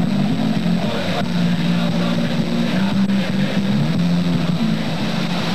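An engine running with a steady low hum that shifts in pitch several times.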